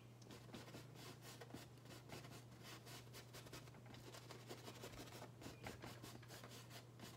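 Faint scratching of a size 12 flat bristle brush working oil paint into a canvas: many short strokes in quick, irregular succession, over a faint steady low hum.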